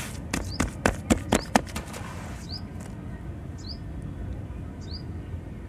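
Hands slapping and patting wet sand-and-cement mix in a plastic tub: about six sharp wet slaps in quick succession in the first two seconds. A bird chirps in the background, a short rising chirp about once a second.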